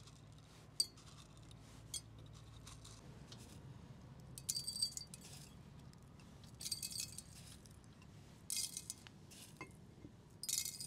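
Glass canning jars chinking as they are handled and filled: a couple of single clicks, then four short bursts of bright clinking about two seconds apart.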